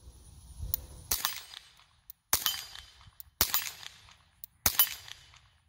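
Four shots from a suppressed .22 semi-automatic pistol, a Ruger Mark IV 22/45 Tactical fitted with a monocore suppressor, fired at a steady pace about one every second and a quarter. Each is a sharp crack that dies away quickly.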